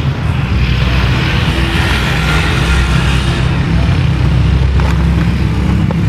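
Motor vehicle noise: a steady low engine rumble, with a hiss of road noise swelling and fading in the middle.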